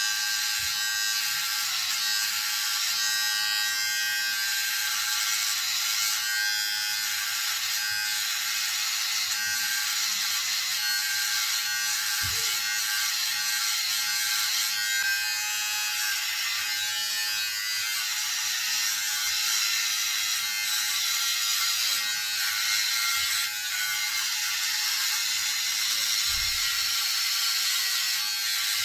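Daling electric hair clipper's motor running steadily with a loud, high whine. There are a couple of brief handling knocks, about 12 and 26 seconds in.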